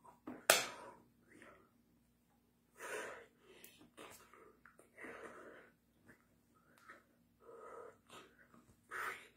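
A person's breathy exhalations and mouth sounds in several short puffs, with one sharp slap of hands meeting about half a second in.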